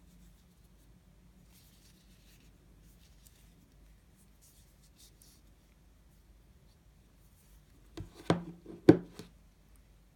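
A roll of magnetic boundary strip being handled, with faint rubbing and scratching. About eight seconds in it is set down on a tabletop with a quick cluster of knocks, two of them loud.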